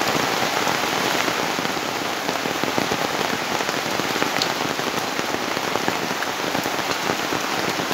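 Heavy rain falling steadily: a dense, even hiss of rain with many small drop impacts all through.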